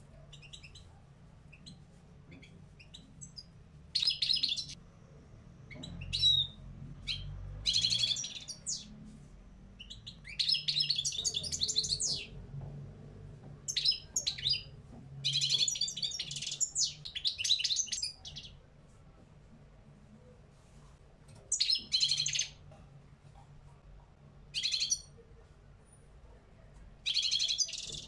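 Caged European goldfinch of the small parva race singing: phrases of fast twittering and trilled notes, with short pauses between them and a longer pause about two-thirds of the way through.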